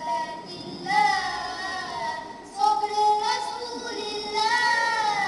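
Boys singing a devotional nasheed in three long, held phrases whose pitch slowly bends up and down.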